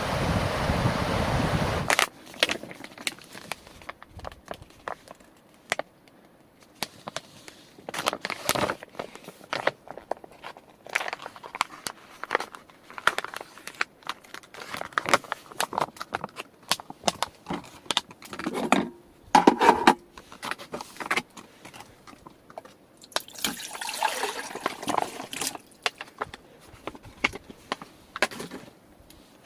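Wind buffeting the microphone cuts off about two seconds in; then scattered clicks, knocks and rustling of things being handled, with a longer rustling stretch near the end.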